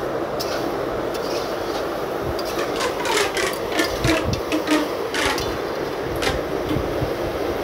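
Chicken pieces frying in spiced masala in a pan with a steady sizzle, while a flat spatula scrapes and knocks against the pan as they are stirred, most busily in the middle.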